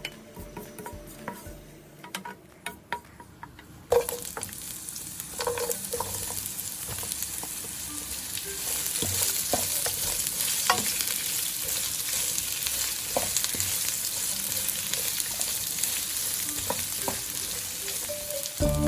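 Food frying in hot oil in a pan: a sizzle starts suddenly about four seconds in and grows a little louder partway through, with occasional clicks of a utensil stirring in the pan.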